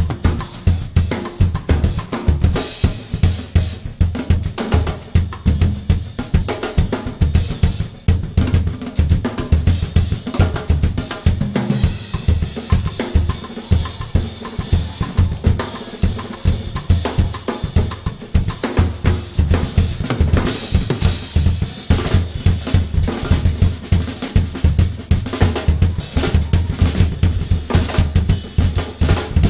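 Drum kit played live: a dense, fast run of bass drum, snare and tom hits with hi-hat, and louder cymbal splashes about 12 and 21 seconds in.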